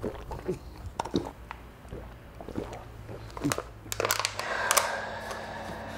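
A man gulping water from a small plastic cup, swallowing again and again in quick clicks and gulps, then a noisy rustle about four seconds in.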